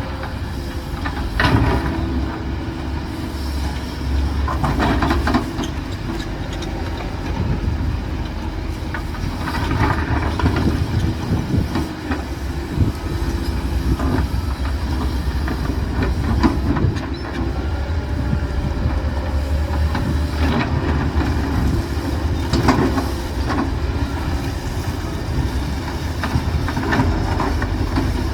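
Heavy diesel earthmoving machinery, such as an excavator loading a dump truck, running steadily with a deep engine rumble, and clanks and knocks every few seconds.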